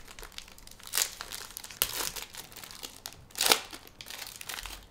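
Plastic wrappers of Panini Mosaic basketball card packs being crinkled and torn open by hand, in several short crackly bursts, the loudest about three and a half seconds in.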